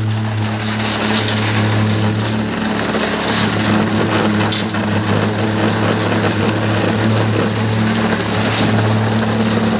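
Concrete pump's engine running steadily under load, a constant low drone with an even hiss over it.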